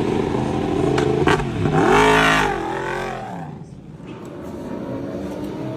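Superbike racing motorcycle engine revving as it passes: the note climbs to its loudest about two seconds in, then falls in pitch and fades away, leaving a quieter steady engine note.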